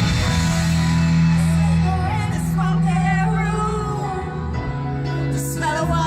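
Pop song playing, a singer's voice over a band with a steady bass line.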